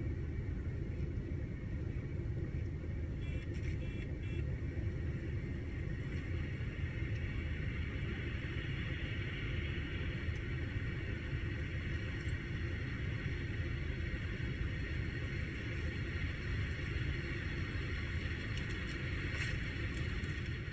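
Steady car noise at highway speed: a low engine and road rumble with tyre and wind hiss, without a break.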